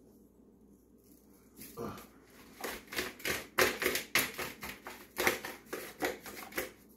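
Sauced chicken wings being tossed in a container: a run of irregular, quick slapping knocks that starts about two seconds in, after a quiet start.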